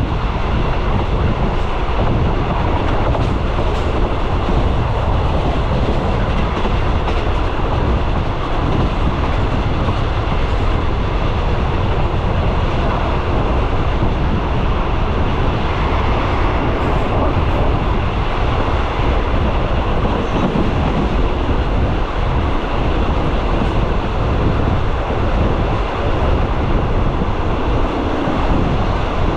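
A train running along the track, a steady rumble and rattle of wheels on rail.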